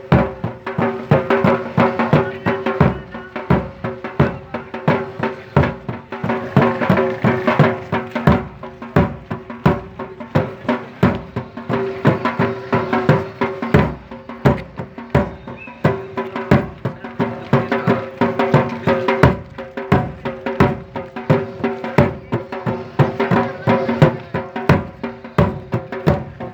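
Mourning-procession music: drums beating a fast, steady rhythm over a sustained droning tone.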